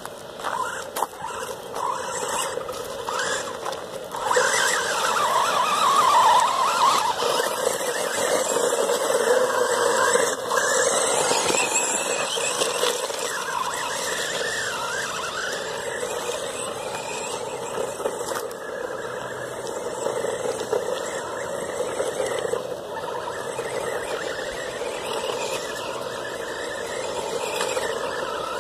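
Small electric 1/12-scale two-wheel-drive RC truck's motor and gears whining as it drives over wet gravel, the pitch rising and falling with the throttle. It is loudest in the first ten seconds or so, then runs steadier.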